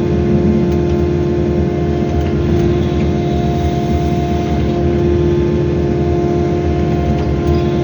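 Wheeled excavator's diesel engine running steadily under working load, with a steady whine over the low rumble.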